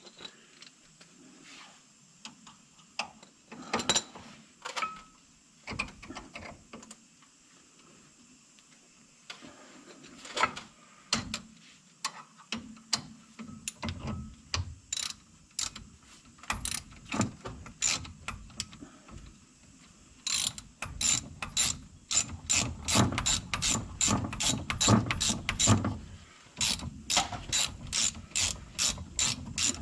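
Hand ratchet wrench tightening the bolts of a front disc brake caliper. First there are scattered clicks and knocks of tools and parts being handled. Then, about two-thirds of the way in, a steady ratcheting sets in at about three clicks a second.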